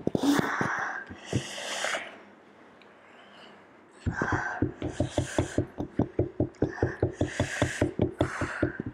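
Sharp hissing and gasping breaths drawn through the mouth, the reaction to a mouth burning from a very hot chili chip. About four seconds in, a fast, even patter of light taps starts under the breathing.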